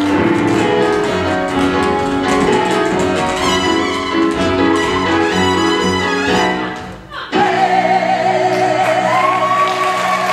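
Live musical-theatre song number, with tap-shoe taps over the band for about seven seconds. After a sudden brief break, two male voices hold the final note with vibrato, the second coming in higher about two seconds later.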